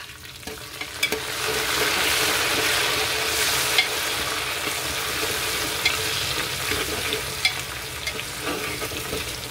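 Fresh mint, coriander and green chillies sizzling in hot oil with fried onions in a pressure cooker, stirred with a spatula that knocks against the pot a few times. The sizzle swells about a second in as the leaves hit the oil.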